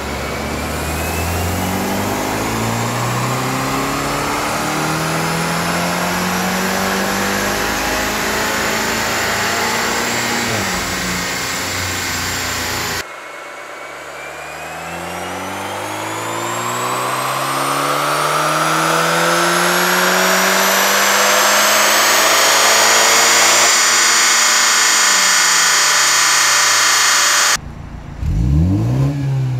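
BMW Z4 sDrive20i's turbocharged four-cylinder engine at full throttle on a chassis dynamometer: two long dyno pulls, the engine note climbing steadily through a gear each time, with a high whine rising alongside. Near the end the revs drop away.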